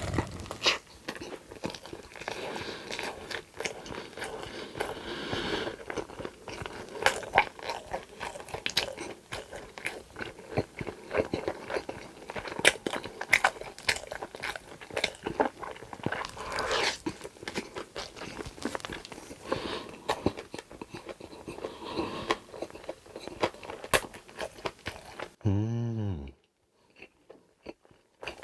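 Close-miked eating: crunchy bites and chewing, with irregular crisp clicks and crackles. Near the end a brief low warbling tone is followed by an abrupt drop to near silence for about two seconds.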